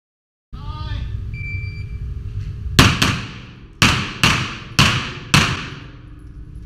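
A short electronic shot-timer beep, then six pistol shots echoing in an indoor range: two in quick succession, then four more about half a second apart.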